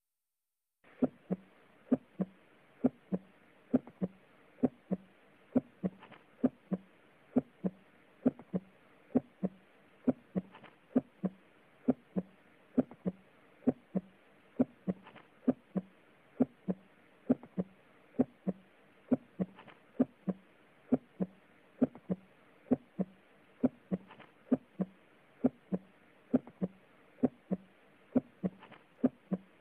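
Auscultated heartbeat through a stethoscope: a steady, regular rhythm of paired low thuds (lub-dub), starting about a second in.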